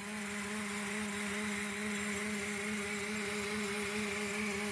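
Air drill running steadily, exhaust muffled with rags, turning a Kwik-Way line boring bar: a steady hum with an air hiss and a fast, even low flutter.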